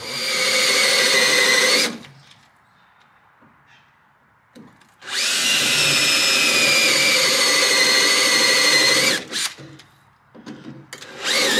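Power drill boring into a steel spreader plate for roll-cage mounting, run in two bursts: a short one of about two seconds, then a longer one of about four seconds whose whine drifts slightly lower in pitch.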